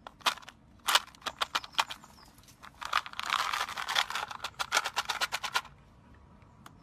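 A rapid, irregular series of sharp cracks or pops, scattered at first and then in a dense cluster from about three seconds in, stopping about five and a half seconds in.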